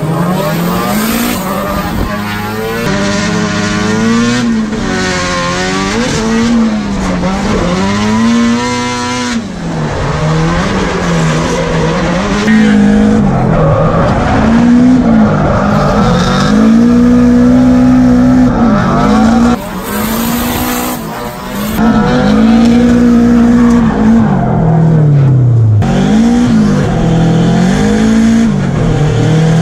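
Nissan S13's turbocharged SR20DET four-cylinder revving hard, its pitch rising and falling every couple of seconds as the throttle is worked through a drift, with tyres squealing. About twenty seconds in it dips briefly, then comes back up to full revs.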